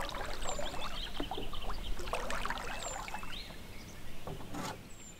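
Canoe paddle strokes in calm water: irregular soft splashes and drips. Over them, a bird gives a short, high falling whistle three times, a few seconds apart.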